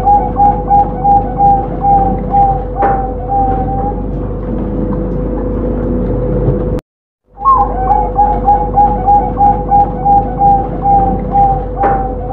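Zebra dove (perkutut) cooing: a quick run of short coos, about four a second, ending in a longer drawn note. After a brief break the song starts again about seven seconds in with a higher opening note. A steady hum runs underneath.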